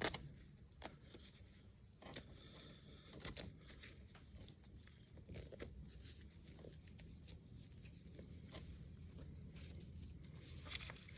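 Feathers being pulled by hand from a scalded rooster's skin: faint, irregular tearing and ripping pulls, with a slightly louder pull near the end.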